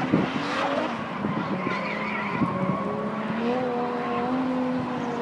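A car doing spinning doughnuts: its engine is held at steady high revs, edging up a little about three seconds in, while the rear tyres spin and smoke, with a faint tyre squeal.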